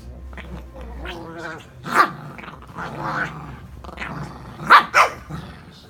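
Dog play-growling at something moving under a duvet, broken by three short, sharp barks, one about two seconds in and two close together near the end.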